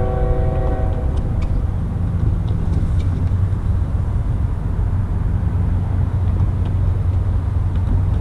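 An approaching freight locomotive's Nathan K5HL five-chime air horn sounds a steady chord that cuts off about a second in. After it comes a loud, steady low rumble from the approaching train.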